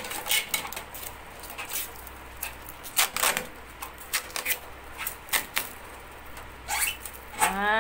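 Blue plastic protective film being peeled and crinkled off a stainless steel gas stove body, with irregular sharp crackles and clicks and one louder crackle about three seconds in.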